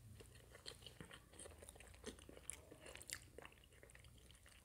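Faint, close-miked chewing of a mouthful of food taken from a plastic spoon: soft, irregular wet mouth clicks and smacks.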